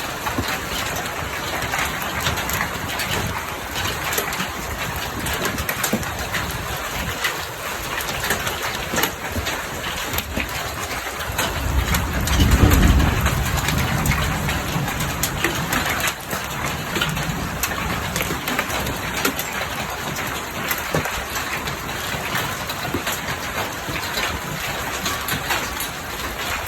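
Large hailstones, golf-ball size, pelting down in a severe thunderstorm: a steady hiss of rain and hail with a dense clatter of sharp impacts. A low rumble of thunder swells about twelve seconds in and dies away over a few seconds.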